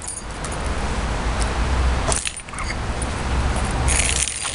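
A bunch of keys on a lanyard jangling and scraping on a concrete path in short bouts, about three times, over a steady low rumble.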